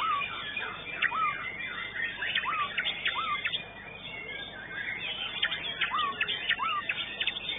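White-rumped shama (murai batu) singing in a contest cage: short, sharp, hooked notes repeated several times a second, thinning briefly about halfway through, over other caged songbirds calling in the background.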